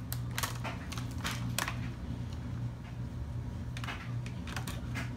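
Plastic keyboard cover strip of an HP Pavilion DV7 laptop being pressed and shifted into place on the case: short plastic clicks and scrapes, bunched in the first two seconds and again near the end, over a steady low hum.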